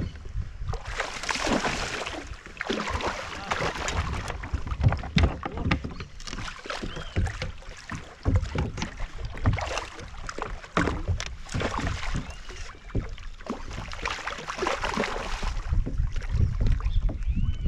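Wind gusting on the microphone over choppy river water, with scattered clicks and knocks from the reel and kayak as a fish is played on a bent rod.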